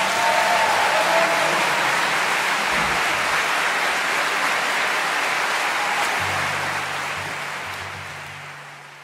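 Concert audience applauding after the orchestra's final chord, fading out near the end. A low steady tone comes in about six seconds in.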